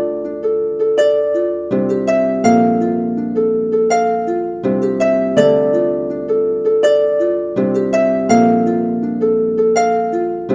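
Music: an R&B loop of plucked, harp-like notes over sustained chords, the same short phrase repeating.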